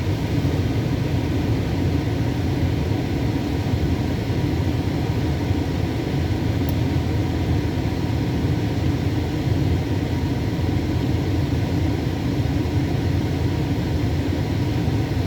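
Storm wind and rain buffeting a car, heard from inside the cabin as a steady, low, dense noise.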